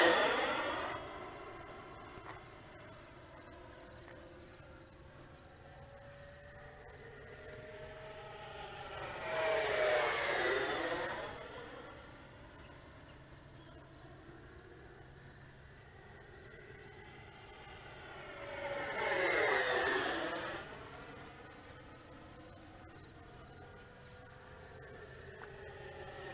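E-Flite Viper 90mm electric ducted-fan RC jet making fast passes at full throttle. Its whine swells as it comes by and drops in pitch as it goes away: one pass fades just after the start, then two full passes come about nine seconds apart. A steady high insect buzz runs underneath.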